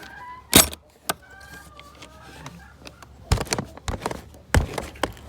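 Chickens clucking softly, broken by several sharp loud knocks and clatters, the loudest about half a second in and a run of them in the second half.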